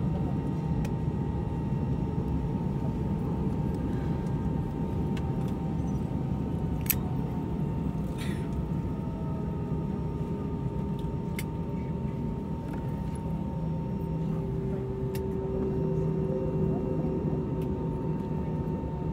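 Airbus A320 cabin noise while taxiing: a steady low rumble from its IAE V2500 engines at idle, with a steady whine above it and a lower tone that grows stronger in the second half. A few faint clicks are heard.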